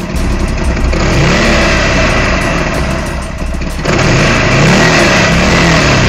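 Motorcycle engine running and being revved, its pitch rising and falling several times. The sound steps up abruptly about four seconds in.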